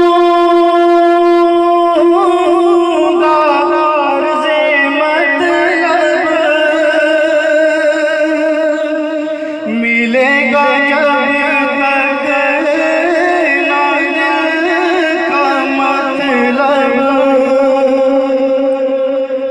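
A man sings an Urdu naat, a devotional song, through a microphone. He holds one long note for the first two seconds, then moves into ornamented runs, and a fresh phrase begins after a brief break about ten seconds in.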